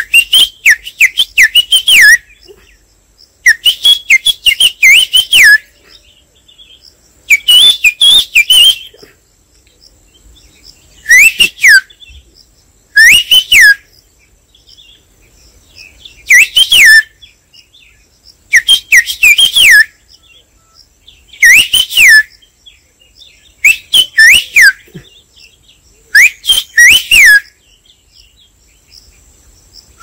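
A man whistling bird-call imitations through his fingers. About ten short phrases of quick, high, rising-and-falling whistled notes, each lasting one to two seconds, come with short pauses between them.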